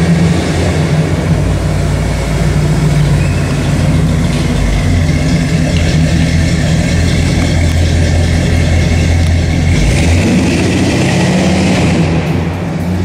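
The 1954 Ford F100's fuel-injected 5.0-litre V8 running at low revs as the truck drives slowly, with a steady low engine note that shifts a little about ten seconds in.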